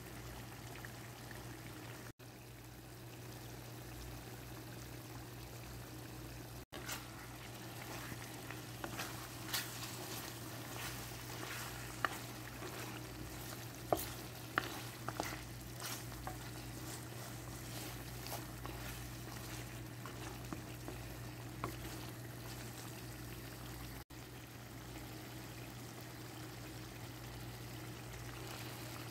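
Mutton curry sizzling in its gravy in a cooking pot, with a steady low hum underneath. A spoon stirs through the meat in the middle stretch, giving a run of sharp clicks and knocks against the pot.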